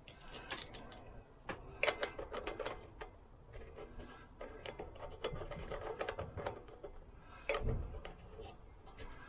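Nut and washer being threaded by hand onto the axle of a Lambretta rear hub: a run of small metallic clicks and rattles in bursts, with a duller knock near the end.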